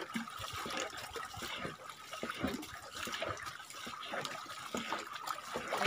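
Small waves lapping and splashing at the lake's edge, a run of irregular little splashes against the shore and a moored canoe hull.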